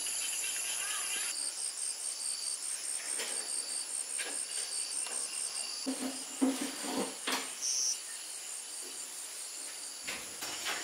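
Insects chirping in a steady pulsing rhythm, about five chirps a second, with a few knocks and clatters a little past the middle.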